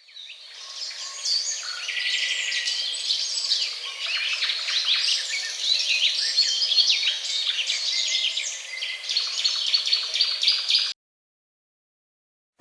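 Birdsong sound effect: many birds chirping at once, a dense chorus of short calls. It fades in over the first second and cuts off suddenly near the end.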